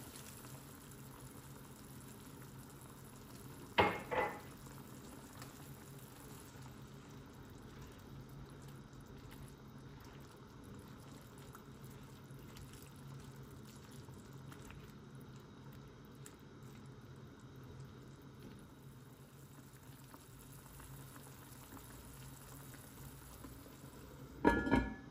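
Stew simmering in an enamelled cast-iron braiser, a low steady bubbling. There is a sharp knock about four seconds in, and near the end the heavy cast-iron lid clanks down onto the pot.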